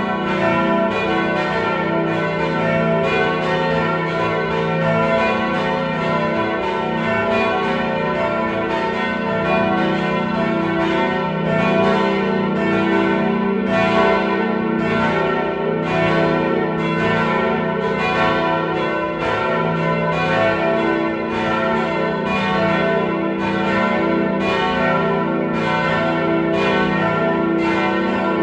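Full peal of four swinging church bells, tuned E, F-sharp, A and B, the oldest cast in 1475. They strike over and over in a steady, overlapping ringing with no pause.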